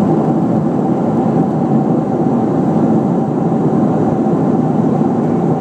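Steady cabin noise of a Boeing 737-600 airliner in cruise flight: an even rush of engine and airflow noise with a faint steady tone running through it.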